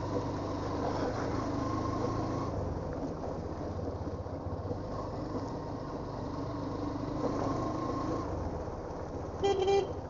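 Motorcycle engine running steadily while riding, its pitch rising and falling gently with road noise. A vehicle horn beeps once briefly near the end.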